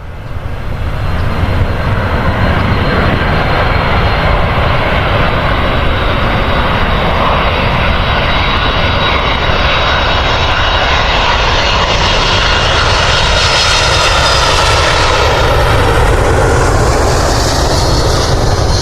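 Airliner's engines, a loud steady rushing noise whose hiss grows brighter about fifteen seconds in.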